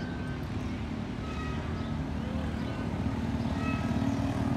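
Steady drone of a running engine that grows slightly louder near the end, with a few faint short high chirps over it.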